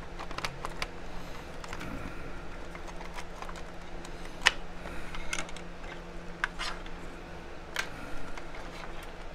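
Scattered clicks and taps of a plastic radio housing being handled and turned over during disassembly, with one sharper click about halfway through. A faint steady hum runs underneath.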